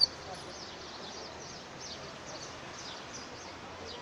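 A burst of European goldfinch song breaks off right at the start. After it, only faint, thin bird chirps about once or twice a second can be heard over a steady outdoor background hiss.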